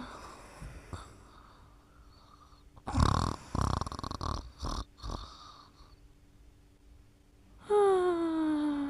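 Snoring in slow cycles. About three seconds in comes a rough, noisy breath lasting roughly two seconds; near the end comes a long, pitched breath whose tone slides steadily down.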